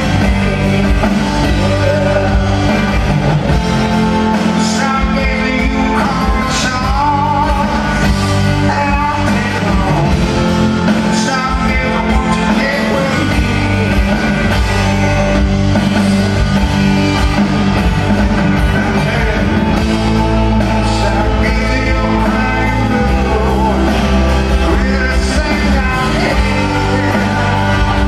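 A rock band playing live, with a lead vocal singing over guitars, bass and drums, heard from far back in the audience of a large hall.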